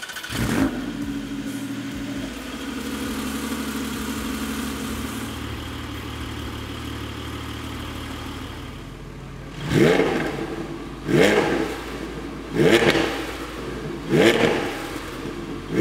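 Porsche 718 Spyder's 4.0-litre flat-six starting up through a newly fitted Cargraphic Race Competition exhaust. It catches, idles high, and settles to a lower idle after about five seconds. In the last six seconds it is blipped four times, about a second and a half apart, each rev rising and falling quickly.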